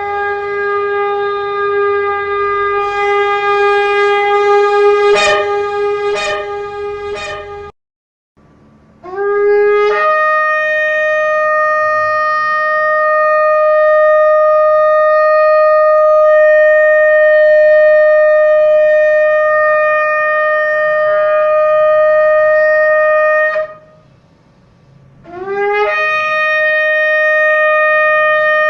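Shofar blown in long sustained blasts. A first held note stops about eight seconds in. After a short pause the pitch slides up into a higher note held for about fourteen seconds. A couple of seconds after that, another blast rises the same way into the same high note.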